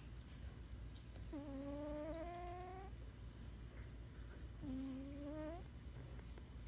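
A sleeping pet snoring with a whistling tone. There are two drawn-out whistles, each rising slightly in pitch: one about a second in lasting about a second and a half, and a shorter one near five seconds in.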